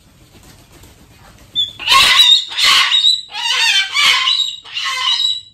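Umbrella cockatoo screaming: about five loud, harsh calls in quick succession, starting about a second and a half in. The screams are its alarm at a dog jumping against the door.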